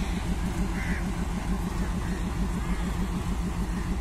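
WDG-3A diesel locomotive's ALCO 251 engine throbbing in a steady, rapid rhythm as it hauls a passenger train away from the station.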